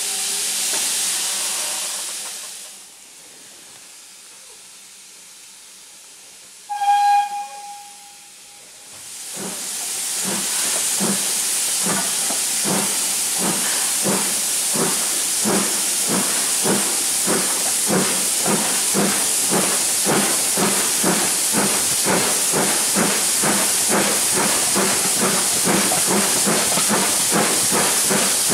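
Steam locomotive hauling a train: hissing steam that dies away after a couple of seconds, a single short whistle blast about seven seconds in, then the steady, regular beat of its exhaust over continuous hiss as it works along the line.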